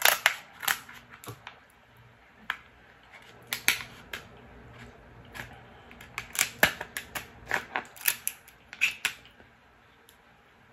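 Kitchen scissors snipping through the shell of a cooked Alaskan king crab leg: a run of sharp cracking clicks in uneven clusters, stopping near the end.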